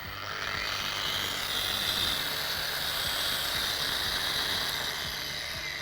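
Brushless 1300 W angle grinder switched on and ramping up gently to full speed: its soft start. It then runs unloaded with a steady high whine, and near the end it is switched off and begins winding down with a falling pitch.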